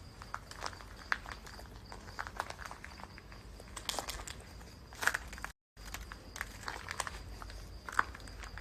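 Footsteps crunching over gritty, debris-strewn ground at an irregular walking pace, with a faint steady high-pitched tone behind them. The sound drops out completely for a moment about halfway through.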